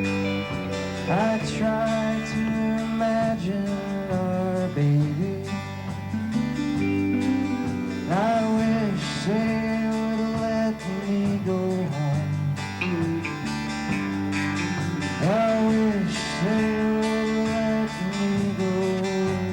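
Live country band playing an instrumental passage: guitars with a lead line of bent, sliding notes, a phrase that comes around about every seven seconds.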